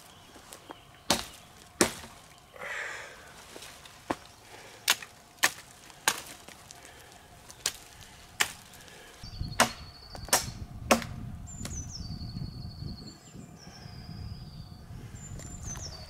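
A large bushcraft knife chopping into a branch: about a dozen sharp, irregularly spaced chops, the loudest near the middle. About halfway in, a low rumble comes up and a bird starts calling in high trills.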